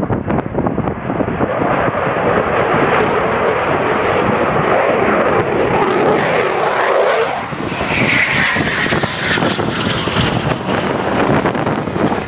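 Eurofighter Typhoon fighter jet flying by, its twin EJ200 turbofan engines loud throughout. About seven and a half seconds in, the deeper part of the noise drops away and a higher rushing sound is left.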